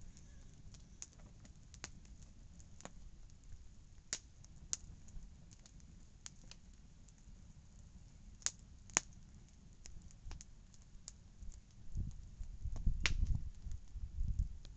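Wood campfire crackling: irregular sharp pops from the burning logs, with a pair of louder pops a little past halfway and another shortly after. A low rumble comes in near the end.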